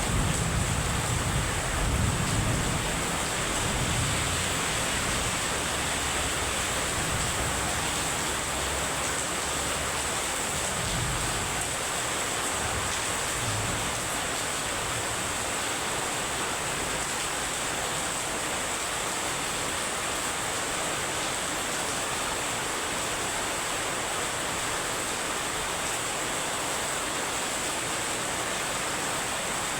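Heavy rain pouring down in a steady, even hiss. A low rumble fades out over the first ten seconds or so.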